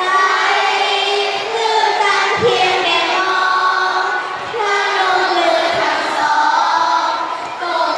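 A group of children singing a slow song together, with long held notes.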